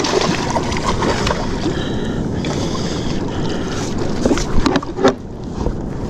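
Wind buffeting the microphone and water lapping around a fishing kayak at sea, with a cluster of short, sharp sounds about four to five seconds in.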